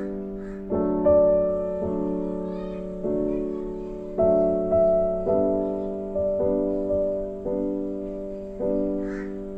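Background piano music: gentle chords struck about once a second, each ringing and fading before the next.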